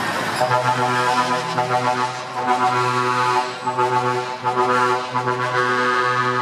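Truck air horn sounding a low, steady note in long blasts with brief breaks, starting about half a second in.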